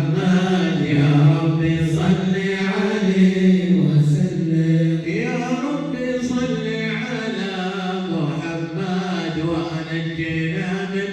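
Group devotional chanting of salawat in drawn-out melodic phrases, over a low held drone.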